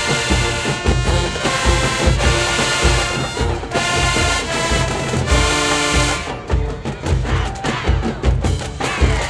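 HBCU-style high school marching band playing in the stands: brass and sousaphones over heavy bass drum hits, ending on a held chord about six seconds in, after which only the drums carry on.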